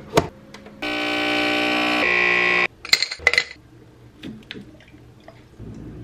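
A small coffee-making appliance's motor runs with a steady hum for about two seconds, then cuts off suddenly. Clinks of a mug and spoon come before and after it.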